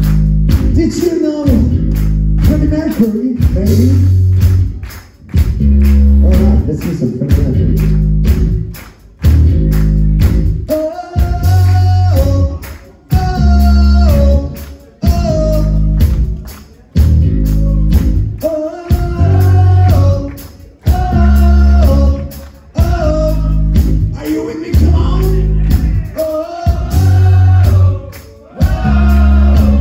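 Live hard rock band playing loud: drums, bass and electric guitars with a lead vocal, the whole band hitting together and cutting out in short breaks about every two seconds in a stop-time riff.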